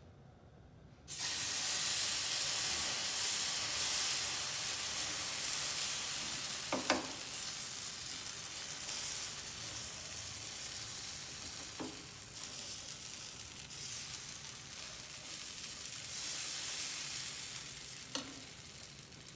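Cassava dosa batter sizzling loudly on a hot dosa tawa. The sizzle starts suddenly about a second in and slowly eases off, with a few light knocks from the ladle or griddle.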